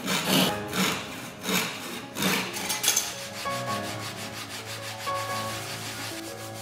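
A piece of wood rubbed by hand on sandpaper sheets: loud rasping strokes about every two-thirds of a second for the first three seconds, then softer, quicker rubbing. Soft piano music comes in about halfway.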